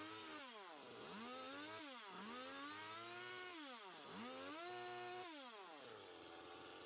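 Small gas chainsaw faintly revving up and dropping back about three times as it cuts into the wood, then easing back toward idle near the end.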